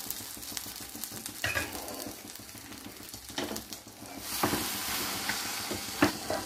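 Butter sizzling on bread in a hot stovetop sandwich toaster on a gas burner, with a few metal clanks as the toaster is handled and folded shut. The sizzle grows denser about four and a half seconds in, and a sharp knock near the end is the loudest sound.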